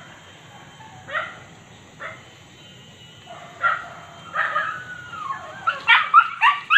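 Small white hunting dog on a leash barking at wild boar quarry: single barks about a second apart, then a quick run of high yips near the end as it lunges.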